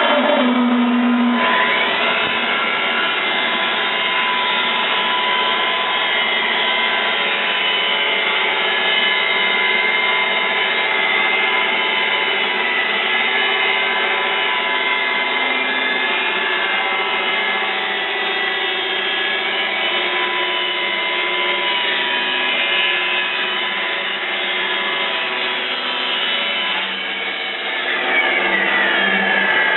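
R-60 band sawmill running on its 5.5 kW electric motor, its band blade sawing a log. It makes a steady whine of many tones, rising in pitch about two seconds in and falling near the end.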